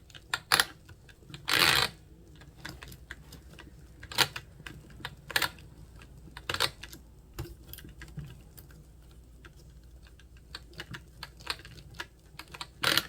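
Light clicks and knocks from an Arrma Big Rock 3S RC truck's freshly rebuilt wheel hub and CVD drive shaft as it is turned to see whether it spins, with a brief rustle near the start and clicks coming closer together near the end. The hub is binding because its cup was not pushed fully in before being screwed down.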